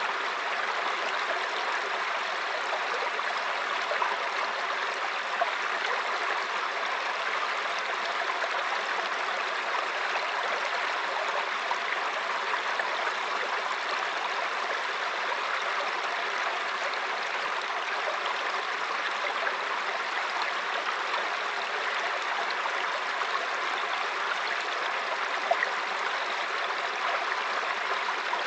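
Mountain stream running over rocks: a steady rushing and gurgling of water, with small splashes now and then.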